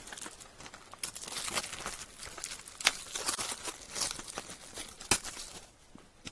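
A plastic DVD case being handled: rustling and crinkling with several sharp clicks from the case, dying down near the end.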